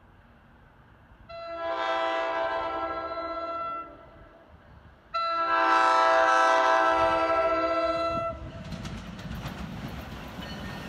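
NJ Transit electric locomotive's multi-note air horn sounding two long blasts, the second louder, as the train approaches. A low rumble of the train running on the rails follows in the last few seconds.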